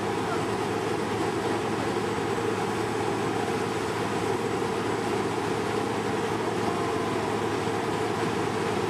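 Claas Lexion 460 combine harvester's diesel engine running steadily with a constant low hum as the machine moves slowly along the road.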